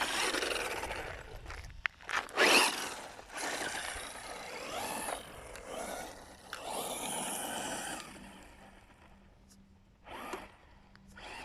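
Quanum Vandal electric RC buggy driving over dirt, its motor whining up and down in short bursts of throttle, with tyres scrabbling on the ground. It goes quieter a little past halfway, with one more short burst near the end.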